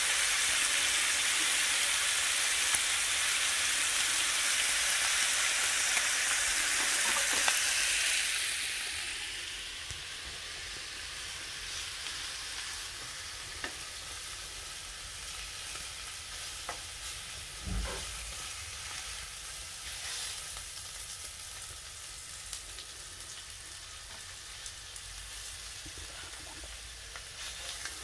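Thin slices of pork neck sizzling in a frying pan. The sizzle is louder for the first eight seconds or so, then drops and goes on more quietly, with a few light clicks and a single knock about eighteen seconds in.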